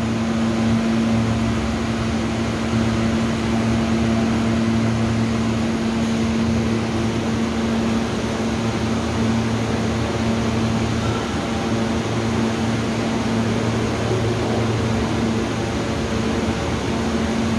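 Alstom R160A subway car standing at the platform with its doors open, its ventilation and electrical equipment giving a steady low hum with a held tone.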